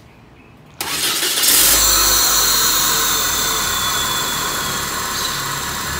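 Peugeot 406 petrol engine starting from cold: it catches suddenly about a second in, flares up, then settles into a steady idle.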